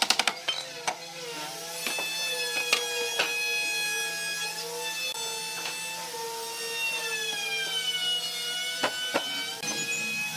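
Background music with a slowly wavering melody. It opens on the end of a fast run of hammer blows on the wooden table frame, and a few separate knocks of wood on wood follow, two of them close together near the end.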